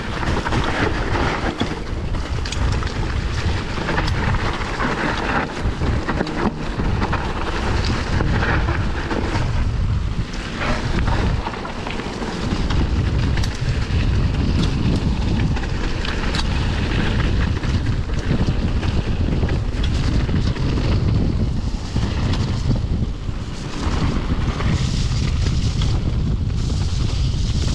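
Wind buffeting the microphone over the sound of mountain-bike tyres rolling fast over a dirt and leaf-covered trail, with scattered rattles and knocks from the bike.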